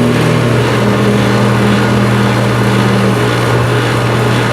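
Central air-conditioner outdoor unit running with a steady low hum from its condenser fan motor, just restarted on a new start capacitor. The running sound is one the owner takes for worn fan-motor bearings.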